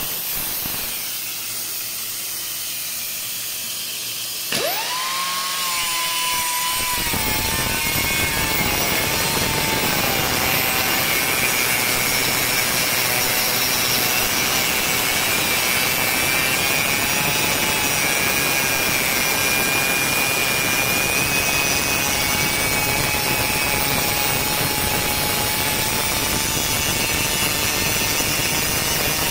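Glomatek pneumatic circular saw: compressed air hisses, then about four and a half seconds in the air motor spins up with a rising whine that settles to a steady pitch. From about seven seconds a loud, harsh grinding noise joins the whine as the blade cuts.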